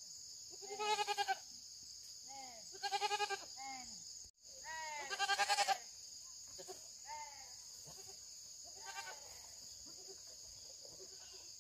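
Young goats bleating over and over. Loud, quavering bleats come about one, three and five seconds in, the third the loudest, with fainter bleats between and after them. A steady high-pitched drone runs underneath.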